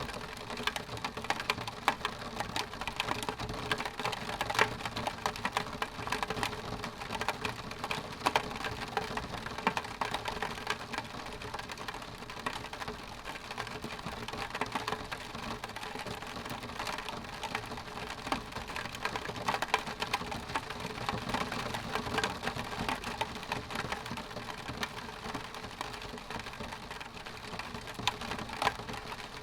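Rain pattering on a window pane: a steady wash of rain with many irregular, crisp drop ticks on the glass.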